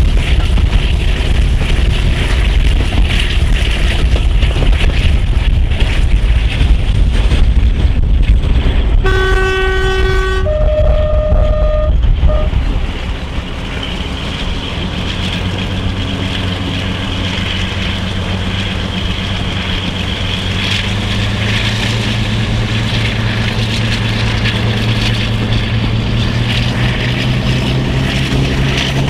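Class 42 Warship diesel-hydraulic locomotive with twin Maybach engines, working hard with a heavy low rumble, heard from a carriage behind it. About nine seconds in its two-tone horn sounds, a low note then a high note. A few seconds later the heavy rumble drops away to a quieter, steadier engine and transmission note that slowly rises in pitch.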